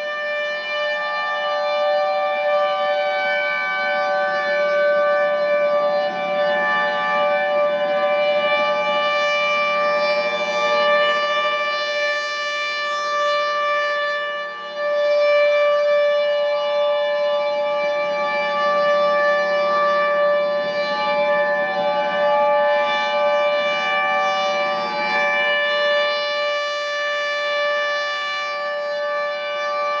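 Several outdoor warning sirens, among them a Federal Signal 2001-130, sounding a steady alert tone together. Their pitches hold flat while the sound swells and fades, with a brief dip about halfway through.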